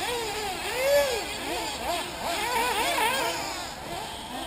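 Several 1/8-scale nitro RC buggy engines revving, high-pitched and overlapping, their pitch rising and falling over and over as the throttles open and close. The loudest single rev comes about a second in.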